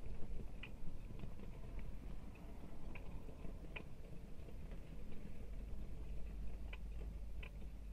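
Low, steady rumble of heavy diesel construction machinery at work, with a few faint clicks and clanks scattered through it.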